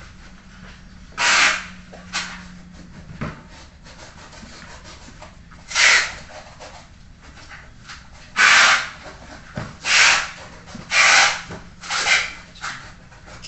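Cardboard product boxes being slid and scraped against one another as they are stacked: a series of short scraping rasps, each under half a second, at irregular intervals.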